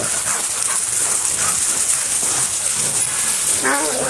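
A pack of excited dogs whining and yelping, with a louder drawn-out whine near the end, over a steady background hiss.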